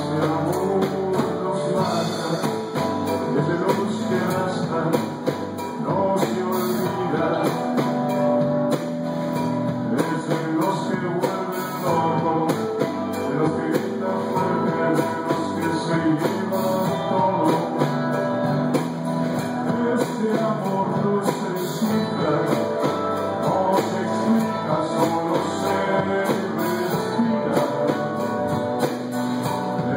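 Live rock band playing, with guitar, bass guitar and drums and a man singing into the microphone.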